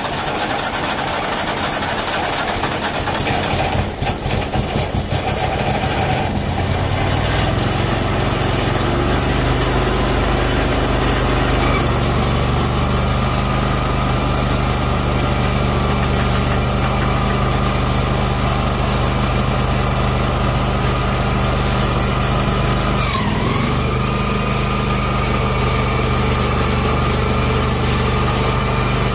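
The Kohler CH730S 25 hp V-twin engine of an Allis-Chalmers garden tractor, just started, runs rough and uneven for the first several seconds, then settles into a steady run. About 23 seconds in its pitch briefly dips and comes back up.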